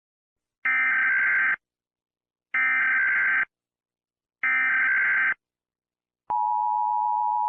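Emergency Alert System alarm: three identical raspy digital header bursts of about a second each, a second apart, then the steady EAS attention tone starting near the end.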